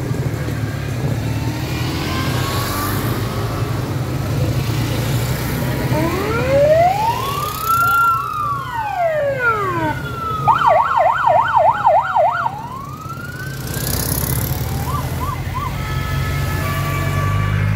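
Emergency-vehicle siren on a vintage military-police vehicle, starting about six seconds in with slow rising and falling wails, switching to a fast yelp of about four sweeps a second, then cutting out, with a few short chirps a little later. Underneath, the small two-cylinder engines of Fiat 126p cars run steadily as they drive past.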